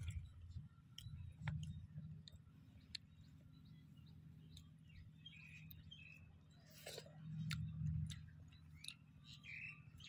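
Faint bird chirps over a steady low hum, with occasional small clicks and a crunching bite of raw cucumber about two thirds of the way through.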